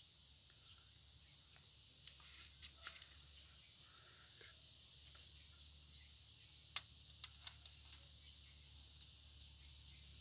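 Light metallic clicks and clinks as a chain necklace is handled and set down on a small digital scale's metal pan, with a cluster of sharp ticks about seven seconds in and a last one near nine seconds, over a faint steady hiss.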